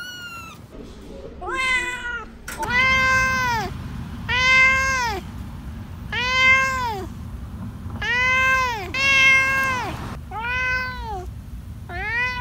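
Kittens mewing in high, thin calls, then an adult domestic cat meowing over and over: about seven long meows that rise and fall in pitch, one every second and a half to two seconds.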